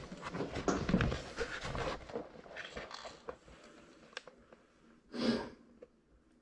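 Close breathing and rustling of clothing and gear with a few small knocks, dying away to quiet; one short, sharp breath out or sniff about five seconds in.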